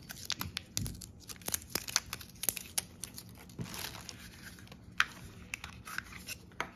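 Tape and plastic wrapping crinkling and tearing as batteries taped to a remote control are pulled free, with scattered sharp clicks of plastic being handled.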